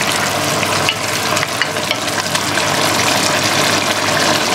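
Chicken adobo boiling in a pot, the sauce bubbling and crackling steadily with a dense patter of small pops.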